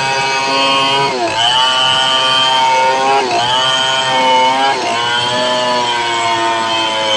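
Home-built chainsaw modelled on the Stihl 070 running at high revs while ripping lengthwise through a medang log. Its pitch sags briefly about a second in, near three seconds and near five seconds as the chain loads up in the cut, then climbs back.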